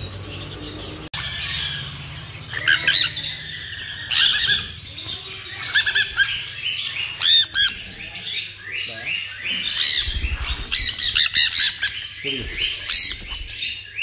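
Many captive exotic birds in an aviary squawking and chirping, short shrill calls overlapping one after another.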